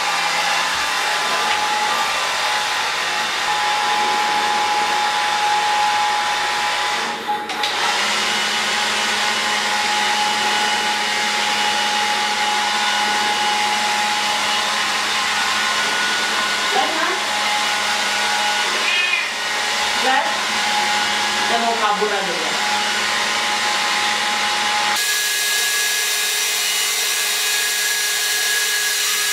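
Handheld hair dryer blowing steadily as it dries a wet cat's fur. Its sound dips briefly about seven seconds in and shifts in tone a few seconds before the end.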